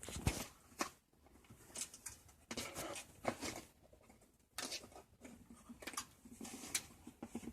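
Packing tape and a cardboard box being picked at and torn open by hand, in irregular scratchy bursts with a few sharp clicks.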